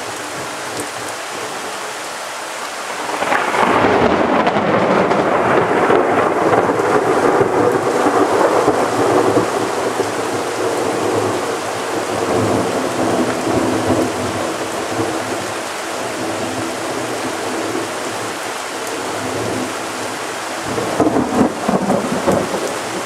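Heavy rain falling steadily during a thunderstorm. About three seconds in, a loud clap of thunder breaks into a long rumble that slowly dies away over several seconds, and another burst of thunder comes near the end.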